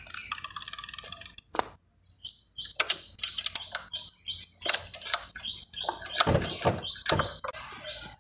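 Sharp metallic clinks and knocks of tools and engine parts being handled, with a louder run of knocking about six seconds in. A small bird chirps over and over in the background, short repeated notes.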